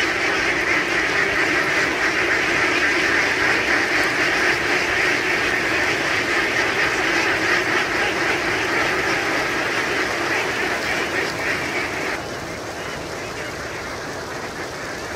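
A large flock of ducks quacking all at once as they run, a dense, continuous din. It thins and gets quieter toward the end as fewer ducks remain.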